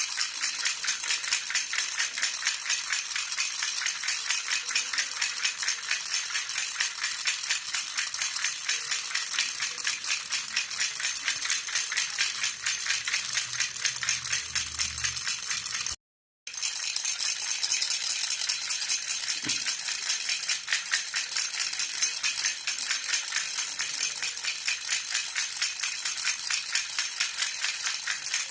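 Silver jhunjhuna, a metal baby rattle, shaken steadily, giving a rapid, even, high jingling rattle. It drops out for about half a second a little past halfway, then carries on.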